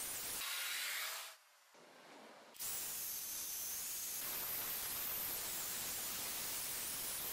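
Ryobi electric car polisher with a sponge buffing pad, running against roof paint: a steady whirring hiss. It cuts out a little over a second in and starts again about two and a half seconds in. The machine is buffing faded, chalky paint to a gloss with fine compound.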